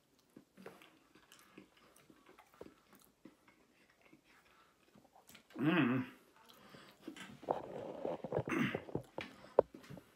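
A person chewing a forkful of taco salad with Doritos, the tortilla chips crunching, faint at first and louder in the second half. About six seconds in comes a short, loud hum from the eater's voice.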